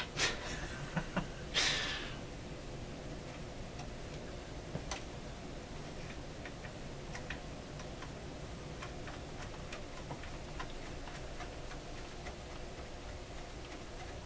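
Small metal clicks and a short scrape in the first two seconds, then faint, irregular ticks, as a screw and nut are worked by hand on a vintage tube radio's metal chassis.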